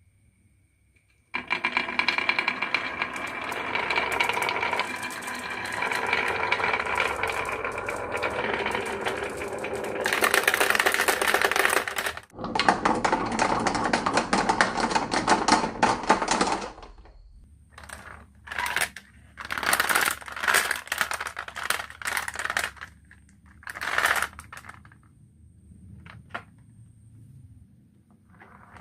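Marbles rolling and clattering down a wooden marble run: a dense, continuous rattle of many small clicks for about fifteen seconds, broken once near the middle, then thinning to scattered bursts of clicks and knocks.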